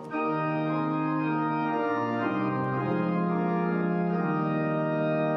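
Casavant pipe organ playing a slow progression of held chords on a bright combination of stops, 8-, 4- and 2-foot ranks and higher pitches piled together. The chords change every second or so.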